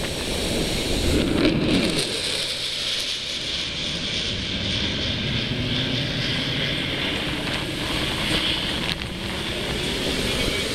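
Strong wind gusting over the microphone, a steady rough rumble with a rushing hiss.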